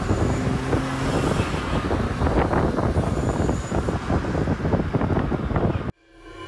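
Perodua Myvi hatchbacks with swapped-in Toyota 3SZ engines driving at speed: engine and exhaust noise mixed with road and wind noise. It cuts off suddenly near the end.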